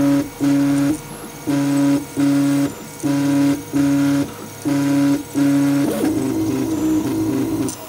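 3D printer stepper motors humming a steady pitched tone in about nine back-and-forth moves of roughly half a second each, with short gaps between them; from about six seconds in the motors move in quick changing steps, so the pitch warbles up and down.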